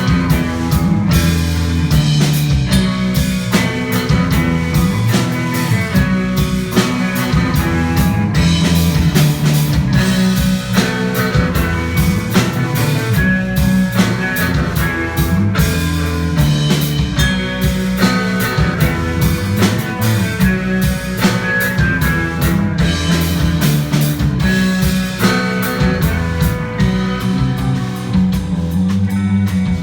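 Rock music with guitar and a drum kit, playing steadily with a regular beat.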